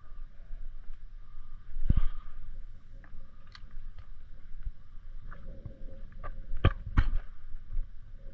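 Wind rumbling on the microphone, with handling knocks and crackly clicks as the angler moves on the bank; the loudest knock comes about two seconds in, and two more come close together near the end.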